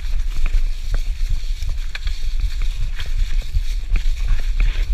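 Mountain bike rolling along a leaf-covered dirt trail: steady wind rumble on the action camera's microphone, with the tyres crunching over fallen leaves and frequent clicks and knocks from the bike over bumps.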